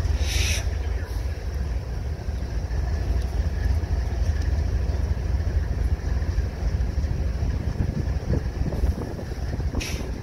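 GE Evolution-series diesel-electric locomotive, CSX 833, idling with a steady low rumble while it stands during a crew change. Short bursts of hiss come just after the start and again near the end.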